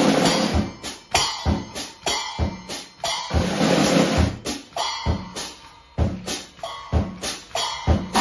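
Yamaha drum kit with Zildjian cymbals played with sticks: bass drum and snare strokes in a steady groove, with cymbal crashes ringing out at the start and again about halfway through.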